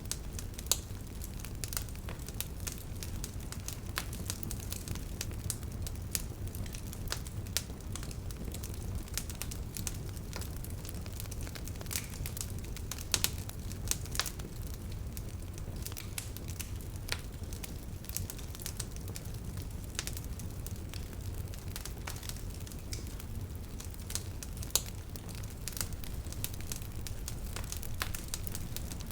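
Wood bonfire burning: a steady low rumble under constant irregular crackling, with a few sharper, louder pops.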